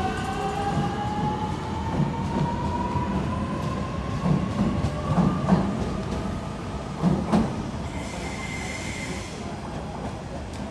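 A double-deck electric suburban train pulls away, its electric motor whine rising steadily in pitch as it speeds up. A handful of sharp wheel clicks over rail joints come a few seconds in, then the running noise fades as it draws away.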